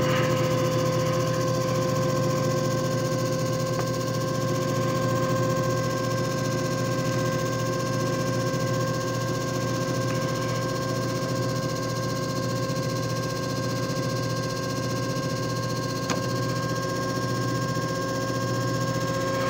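JFJ Easy Pro disc repair machine's motor running steadily at speed just after being switched on, a constant hum with a steady whine over it.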